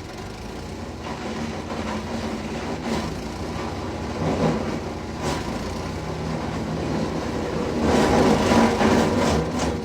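Wood chipper running steadily with an engine hum, getting louder for a stretch about eight seconds in.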